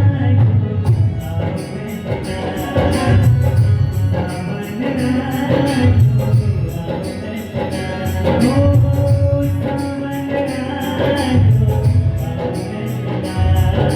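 Devotional bhajan music: jingling percussion keeps a steady beat of about four strikes a second over low drum beats, with a held melody line above.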